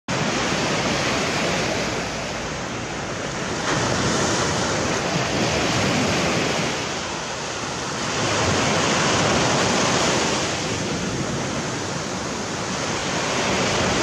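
Sea surf breaking and washing up a sandy beach, the rush of water swelling and easing every few seconds.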